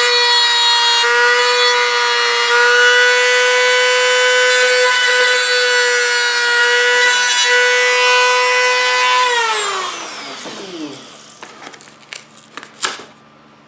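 Dremel rotary tool spinning a brass tube at high speed to press rivet impressions into a scale jet's skin: a steady high whine that is switched off about nine seconds in and winds down in falling pitch. A few light clicks and taps follow near the end.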